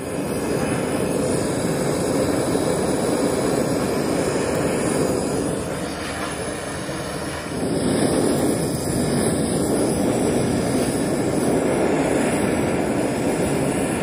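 Handheld kitchen blowtorch running with a steady hiss as its flame sears orange segments. The hiss dips slightly for a moment about halfway through.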